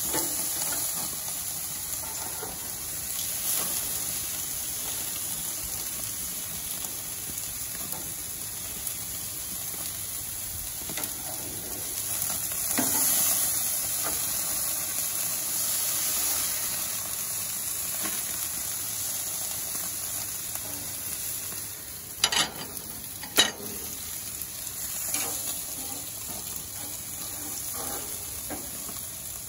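Meat patties and chicken sizzling on the grates of a gas barbecue grill, a steady high hiss. Two sharp clicks about a second apart come a little past two-thirds of the way through.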